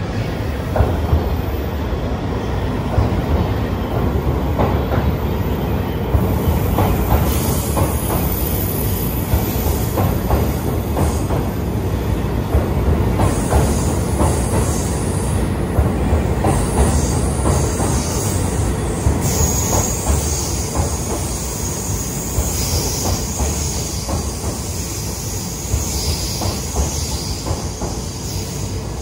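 A JR East E657 series electric limited express train arriving at a station platform and rolling past at slowing speed. Its wheels rumble steadily and click over rail joints, and a high-pitched squeal rises in the second half as it brakes.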